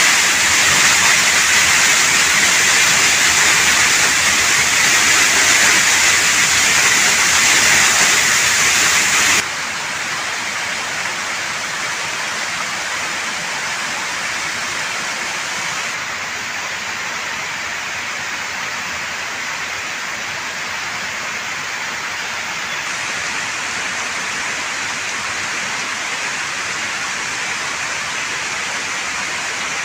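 Steady rushing of a three-tier waterfall, a dense even hiss of falling water. About nine seconds in it changes abruptly to a quieter, duller rush.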